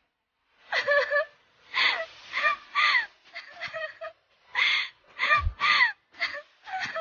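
Crows cawing repeatedly: a dozen or so harsh calls, each falling in pitch, with short gaps between them.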